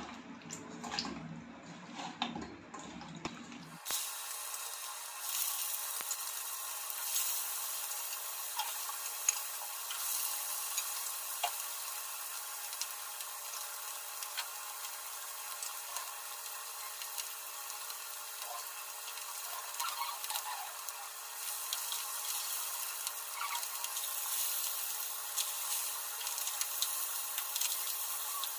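Fish steaks sizzling in hot oil in a frying pan, a steady hiss that starts abruptly about four seconds in. Before that, hands squish and rub marinated fish pieces in a steel bowl.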